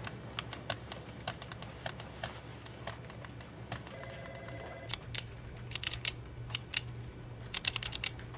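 Light, sharp taps on office desks in irregular short runs with pauses, Morse code being tapped out, over a steady low hum.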